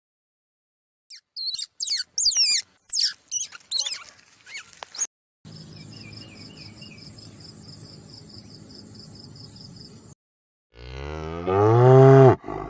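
A cow moos once near the end: one long low call, the loudest sound here. Before it come a string of quick high chirps, then a steady high cricket trill for about four seconds.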